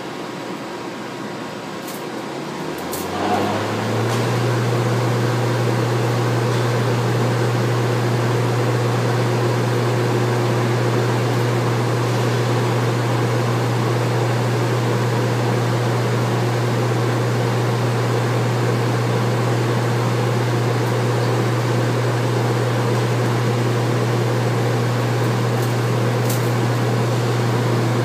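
A machine's motor speeds up about three seconds in, its low hum rising briefly in pitch and getting louder, then running at a steady speed with a constant hum over mechanical noise.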